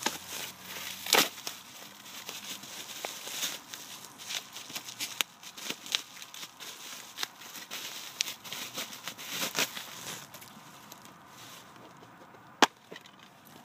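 Packing material rustled and crinkled by hand as a parcel is unpacked, in irregular bursts with scattered clicks. It grows quieter in the last few seconds, with one sharp click near the end.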